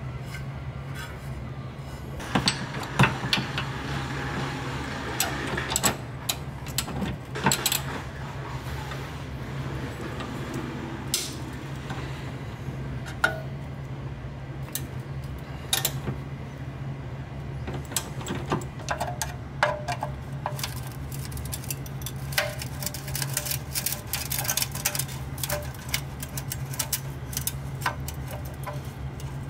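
Hand tools clinking and knocking against a Porsche 993's steel exhaust as its bolts are worked loose, with a socket ratchet clicking rapidly on the muffler clamp bolt in the last several seconds. A steady low hum runs underneath.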